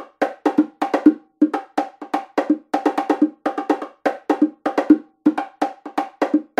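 Music with a quick, steady beat of short pitched percussive knocks, about three a second.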